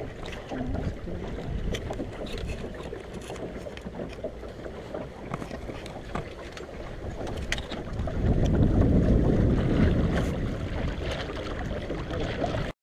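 Wind buffeting the microphone over the rush of water along the hull of a small sailing dinghy under way. The wind rumble gusts louder for a couple of seconds about eight seconds in.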